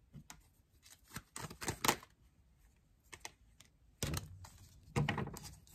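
Tarot card deck being handled and a card drawn: a run of quick, sharp card clicks and flicks in the first two seconds, then a few heavier thumps about four and five seconds in.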